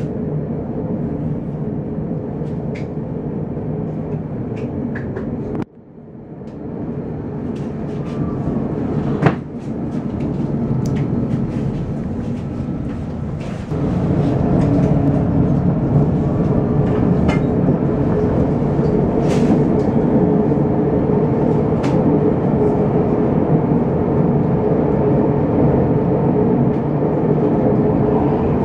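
Helsinki city tram running, heard from inside the car: a steady rumble of wheels on the rails with scattered clicks and rattles. The noise drops sharply for a moment about six seconds in and is louder from about halfway on.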